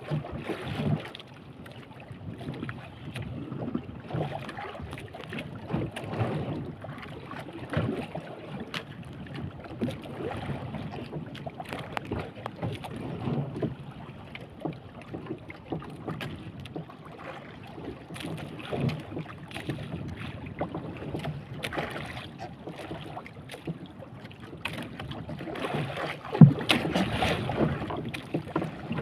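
Water slapping and lapping irregularly against the hull of a small wooden boat on open sea, with wind buffeting the microphone. There is one sharper, louder knock near the end.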